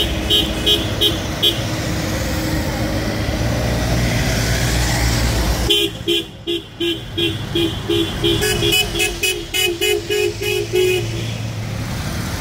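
Car horn tooted in rapid short beeps, about four a second: a few at the start, then a long run from about six seconds in until near the end, over a steady rumble of car and road.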